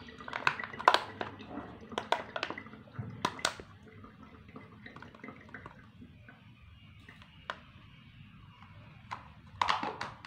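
Water poured from a plastic bottle into a funnel, splashing and dripping, with scattered clicks that thin out after about four seconds. A louder clatter near the end as the bottle is set down.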